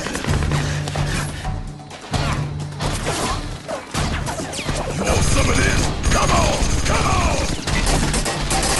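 Action-trailer soundtrack: a pulsing low bass rhythm that cuts in and out, under rapid mechanical clicking and ratcheting effects. Wavering higher tones come in over the second half.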